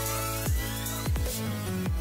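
Electronic background music: held synth chords with a rising sweep and deep bass notes that slide downward three times.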